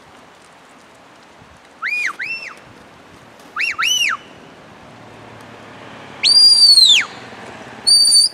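Shepherd's whistled commands to a Border Collie working sheep. Two pairs of short rise-and-fall notes come first, then one long note that climbs and falls, then a short steady high note.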